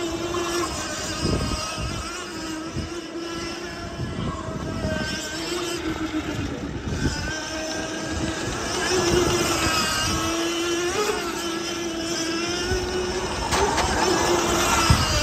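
Formula SAE race car's engine running at nearly steady revs as the car circles the skidpad, with a few brief dips and small rises in pitch.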